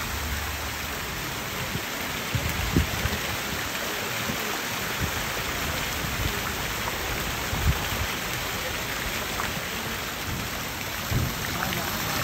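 Fountain jets and spouts splashing into a stone basin pool: a steady hiss of falling water, with a few brief low thumps.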